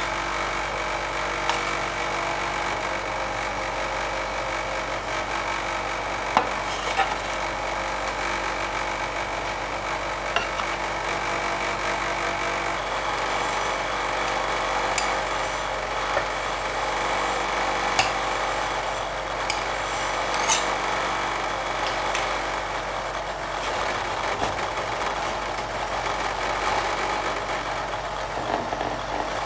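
Metal spatulas scraping and spreading dragon fruit ice cream mixture across a frozen steel cold plate, with a few sharp clicks of metal on metal. Near the end a spatula scrapes the frozen sheet up into a roll. Under it all runs the steady hum of the rolled ice cream machine.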